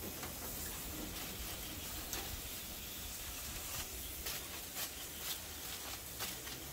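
Foil-wrapped fish cooking on a barbecue grill: a faint steady sizzle with scattered small crackles.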